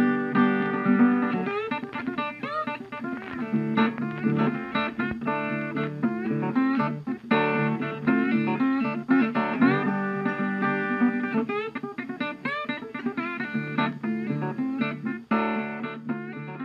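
Background music: guitar playing, with plucked notes and chords.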